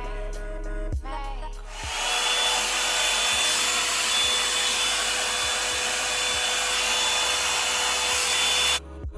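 Revlon hot-air dryer brush running: a steady rush of blown air with a thin whine, starting about two seconds in and cutting off suddenly near the end. Background music plays before and after it.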